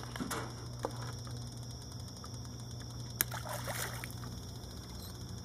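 Steady low mechanical hum, with a few faint clicks and one sharp tap about three seconds in.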